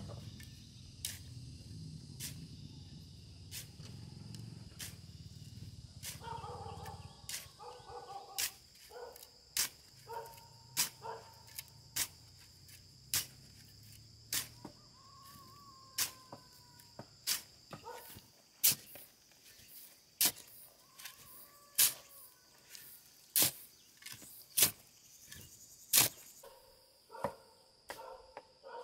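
Sharp blows of a hand tool, one about every second and a half, starting some eight seconds in and getting louder toward the end. A steady high whine runs underneath.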